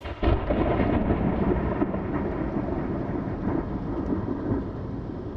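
A long roll of thunder that starts suddenly and slowly dies away.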